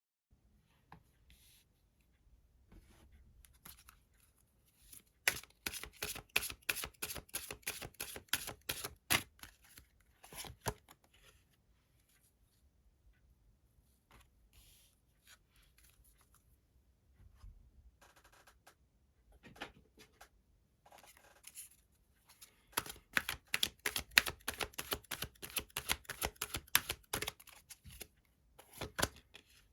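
Tarot cards being shuffled and handled: two long runs of quick card clicks, one a few seconds in and one in the last third, with softer, scattered card handling between.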